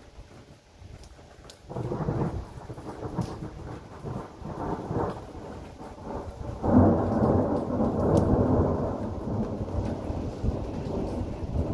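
Thunder rolling in about two seconds in, rumbling, then a louder peal about seven seconds in that goes on rumbling, over falling rain.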